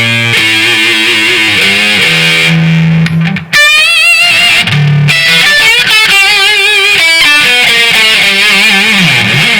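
Overdriven electric guitar playing a lead line of sustained notes with wide vibrato. It breaks off briefly about three and a half seconds in, then runs on and ends with a note bent downward.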